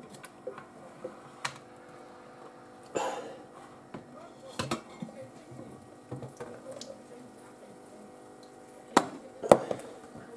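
Soffritto pressure cooker's stainless-steel lid being twisted open and lifted off by hand once the pressure is released: scattered light metal clicks and knocks, then two sharp clanks about half a second apart near the end as the lid comes free.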